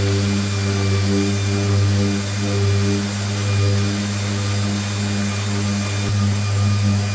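Festool random orbital sander with a dust-extraction hose running steadily against a wooden cabinet top, stripping old varnish: a loud, even machine hum.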